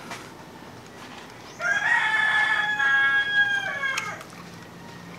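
A rooster crowing once, a single drawn-out call of about two and a half seconds that holds its pitch and drops away at the end.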